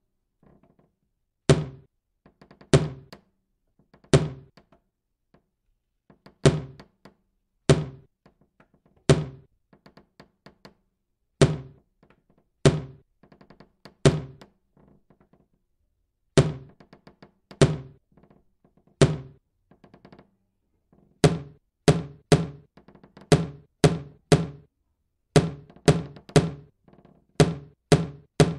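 Wooden automaton's mallet knocking down on a wooden block, the strokes driven by a hand-cranked cam shaft, with soft clicking and rattling of the wooden cams and followers between strikes. The knocks come in groups of three with short pauses, and the groups come faster from about three quarters of the way in.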